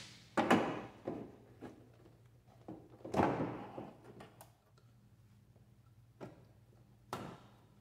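A string of separate knocks, clicks and scrapes from hand tools and plastic and rubber air intake parts being handled as the mass air flow sensor's housing and inlet duct are worked loose, the loudest about three seconds in.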